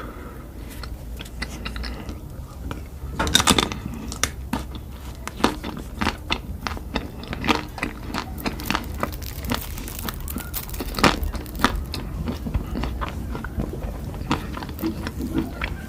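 Close-up eating sounds: a person biting and chewing food, with irregular sharp crunches and wet clicks, denser near the start and again in the middle.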